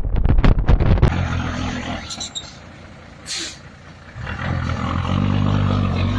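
Heavy diesel truck engine with a loud, rhythmic rumble of exhaust pulses that gives way about a second in. A short burst of hiss comes a little after three seconds, then a steady engine note builds from about four seconds.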